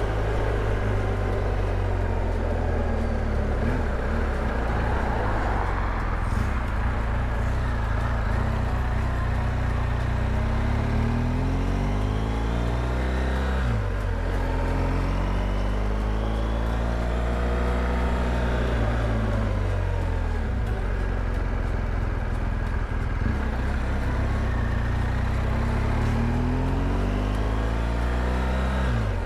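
BMW R1200GS Adventure's boxer-twin engine running steadily while under way, with wind noise rushing over the microphone. Several rising-and-falling tones come and go over it.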